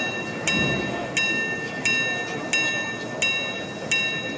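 French miniature carriage clock's repeater striking the hours on its gong after its repeat button is pressed. Six even strikes, each ringing on, about two-thirds of a second apart, counting out the hour.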